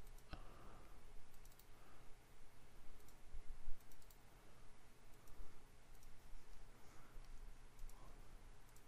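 Scattered computer keyboard and mouse clicks, irregular and light, over a faint steady low hum.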